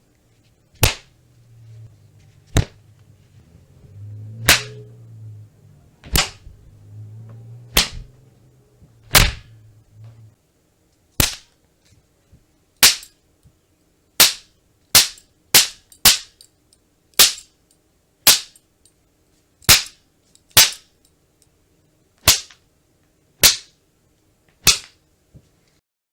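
Belt being whipped: a series of about twenty sharp cracks, mostly a second or two apart and in places only half a second apart.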